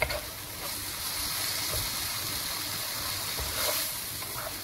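Chicken strips and chopped tomato sizzling in hot oil in a wok, a steady hiss, with a few light scrapes of a wooden spoon stirring them.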